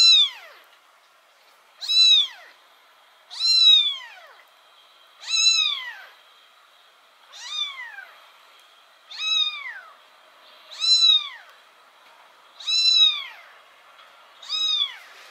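A kitten about three weeks old meowing over and over: nine short, high calls, one about every two seconds, each rising briefly and then falling in pitch.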